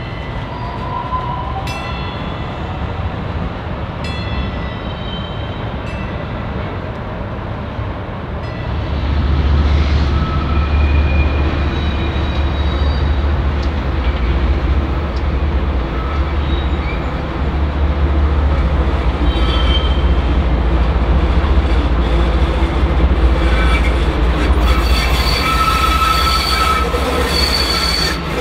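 DART light rail train running through a track junction: a low, steady rumble builds from about nine seconds in, with steel wheels squealing on and off as the train takes the curves, loudest near the end. Before the rumble, a ringing tone sounds about every two seconds.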